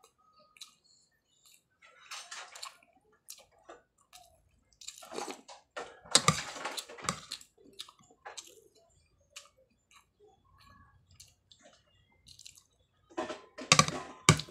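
A person eating with a spoon, chewing and slurping wetly, with a few light clicks between mouthfuls. The eating noise comes in irregular bursts, loudest about two seconds in, from about five to seven seconds, and near the end.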